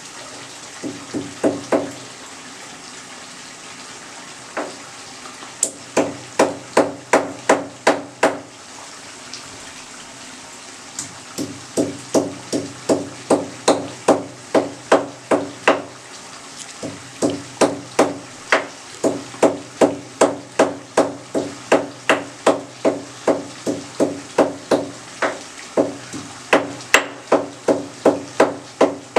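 Rhythmic knocking, about three hard strikes a second, each with a short hollow ring, coming in long runs broken by brief pauses, over a steady low hiss.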